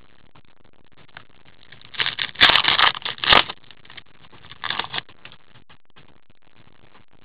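Trading cards handled and shuffled in gloved hands: a loud stretch of rustling and scraping with a couple of sharp clicks about two seconds in, then a shorter rustle around five seconds.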